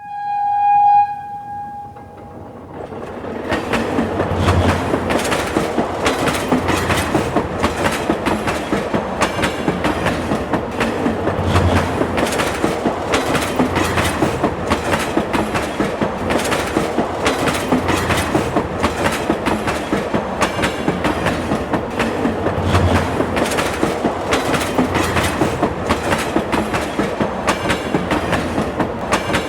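Subway train sounding a short single-tone horn, then running along the track with a steady rumble and a regular clickety-clack of wheels over rail joints.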